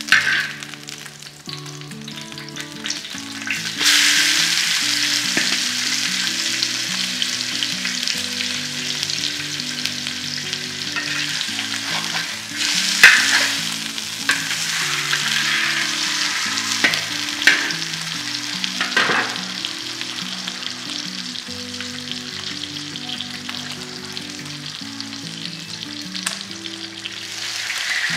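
Whole crucian carp frying in hot oil in an iron wok, a steady sizzle that grows louder about four seconds in, with a few sharper crackles along the way.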